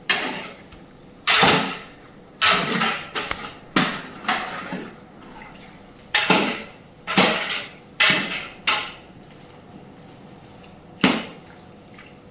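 Cooking sounds from a biryani pot: about ten sudden knocks, each with a short, splashy fading tail, irregularly spaced, with a longer pause before the last one.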